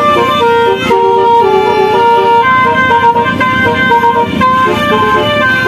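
Basuri telolet musical horn on a vehicle playing a tune: several loud horn notes sounding together and stepping from pitch to pitch in quick succession.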